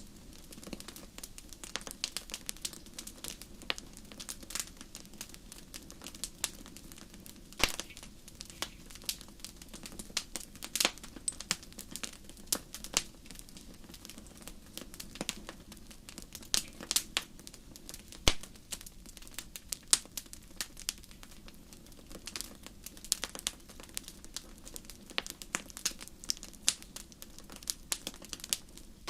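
Fireplace fire crackling: irregular sharp pops and snaps over a faint steady rush of burning, with a few louder snaps scattered through.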